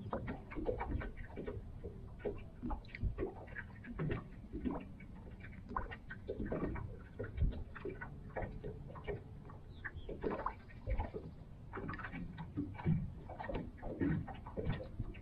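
Small waves lapping and slapping against the boat's hull: a steady run of irregular light knocks and splashes over a low rumble.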